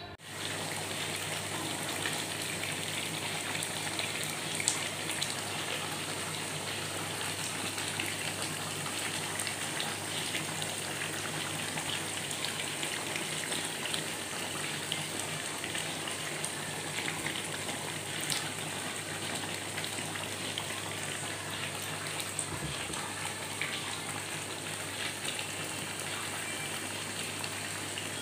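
Chicken simmering in a thick spiced chili sauce in a nonstick frying pan, sizzling and bubbling steadily with scattered sharp crackles as the sauce cooks down.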